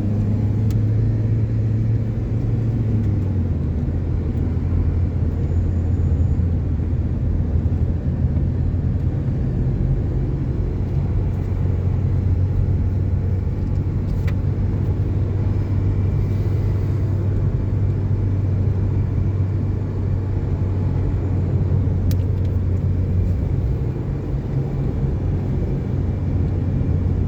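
Car engine and tyre noise, a steady low drone heard from inside a moving car; the engine note drops slightly about three seconds in.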